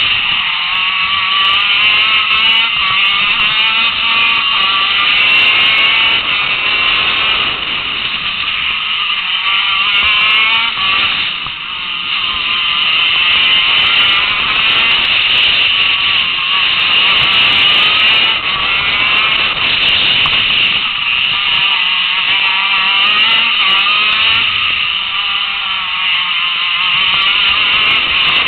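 KZ2 shifter kart's 125cc two-stroke engine at racing revs, heard from on board. The pitch climbs and falls again and again as it accelerates out of corners and slows into them.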